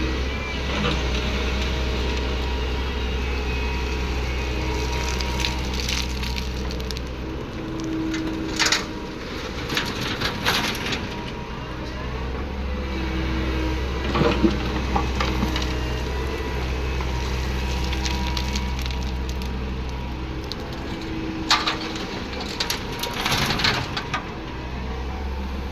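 Komatsu PC200 excavator's diesel engine running steadily, with three bursts of crushed stone clattering and crashing as the bucket works the load: about 9 to 11 seconds in, around 14 seconds, and about 21 to 24 seconds in.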